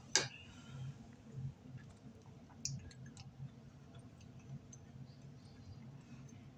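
A sharp click just after the start, then a few fainter clicks over a low steady hum.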